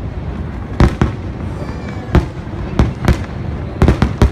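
Fireworks bursting overhead: a string of sharp bangs at uneven gaps, several close together near the end.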